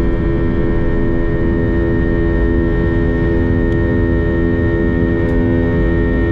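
Steady drone of an Airbus A320 heard inside the cabin: a low rumble with several held, even tones over it, unchanging throughout.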